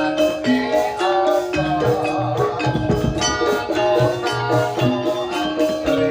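Jaranan Dor ensemble music: metal mallet instruments playing a fast melody of short stepped notes over drums.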